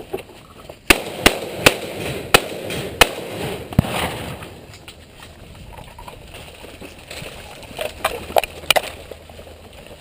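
Six rapid shotgun shots, roughly half a second apart, in the first four seconds. Near the end comes a quick cluster of softer clicks and knocks.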